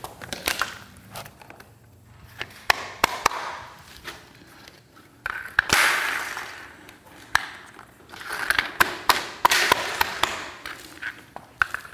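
Swisstrax interlocking plastic floor tiles and edge pieces being handled and snapped into place on concrete: many sharp clicks and clacks, with longer scraping as tiles slide over the floor about six seconds in and again between eight and ten seconds in.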